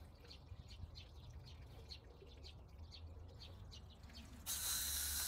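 Small birds chirping faintly, about three short high chirps a second. About four and a half seconds in, a hose starts spraying water onto the horse with a steady hiss.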